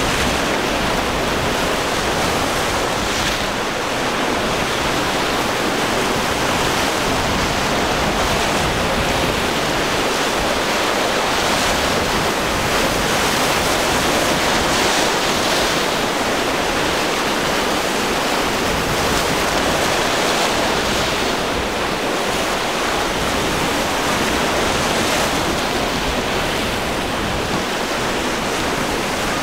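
Surf and choppy waves breaking, with wind blowing: a steady rushing noise.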